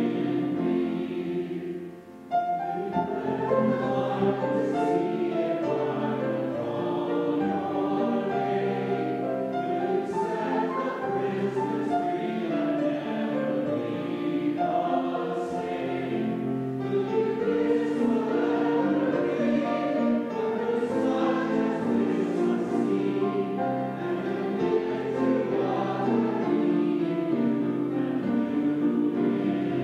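A church congregation singing a hymn together, with a short break about two seconds in.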